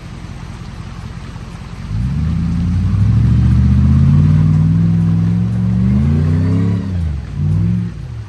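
Third-generation Toyota 4Runner's engine idling, then given gas about two seconds in and pulling hard under load as it climbs a rocky waterfall ledge. The pitch rises and falls with the throttle, eases off near seven seconds, blips once more and drops back.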